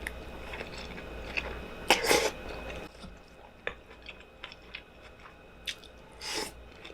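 A person chewing and eating a burrito bowl close to the microphone, with scattered small wet mouth clicks and two louder noisy bursts, one about two seconds in and one near the end.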